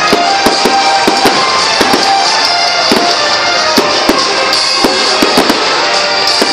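Aerial fireworks bursting and crackling, many sharp bangs and pops several times a second, over loud music with held notes.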